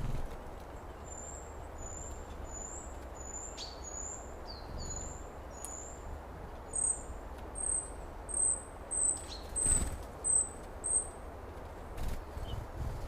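A small songbird repeating a short, thin, high note about twice a second, stopping near the end, over a steady low outdoor rumble with a few scattered knocks.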